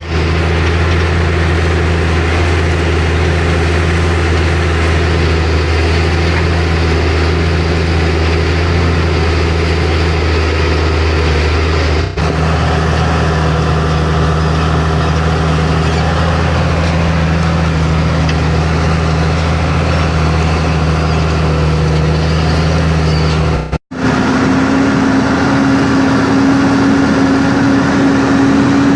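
New Holland TM155 tractor's diesel engine running steadily under load while pulling a plough through mud. The sound drops out briefly twice, and after the second break the engine note is a higher steady hum.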